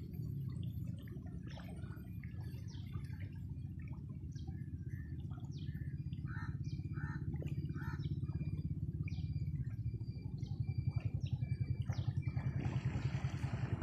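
Low steady rumble with a fast pulsing that grows louder after about ten seconds, under scattered bird chirps.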